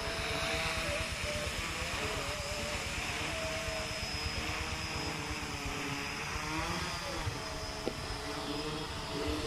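Homemade F450 quadcopter's motors and propellers buzzing as it flies low, the pitch wavering up and down as the throttle changes. Wind rumbles on the microphone underneath.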